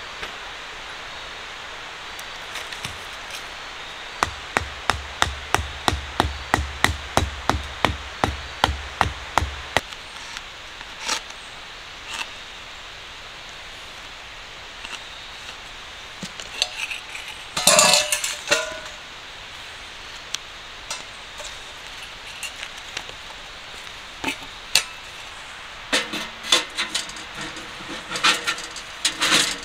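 A tent stake being driven into the ground with a mallet: about sixteen even knocks, roughly three a second, for some six seconds. Scattered metallic clinks and clatter follow as sections of the metal stove pipe are fitted together, with one loud clatter about halfway through and a busier run of knocks near the end.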